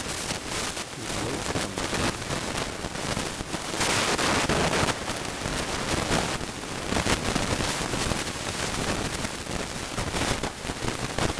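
Light clicking and rattling of the steel governor flyweights of a Roosa Master diesel injection pump as a gloved hand works them in their retainer, over a steady hiss that grows louder for about a second around the middle.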